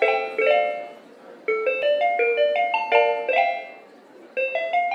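Background music: a bright melody of quick, stepping notes played in short phrases, with two brief pauses between them.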